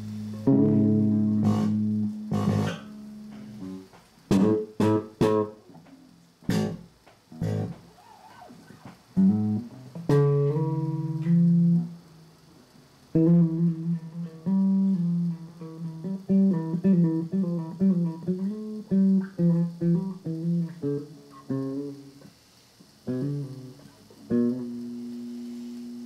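Guitar played solo: a couple of held notes, then a handful of sharp, short strikes a few seconds in, then phrases of separate picked notes with short pauses between them.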